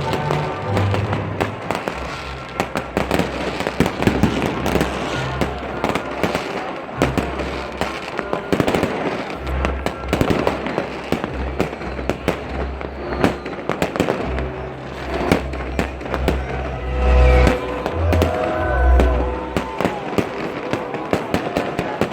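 New Year's fireworks going off continuously, dense crackling with repeated deep booms, the loudest booms coming in the second half, over waltz music.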